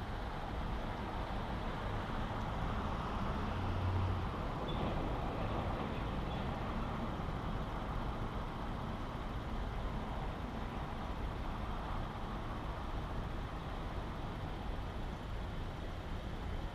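Car engine idling steadily while the car stands still, a constant low hum under an even background noise. The low hum swells briefly about four seconds in.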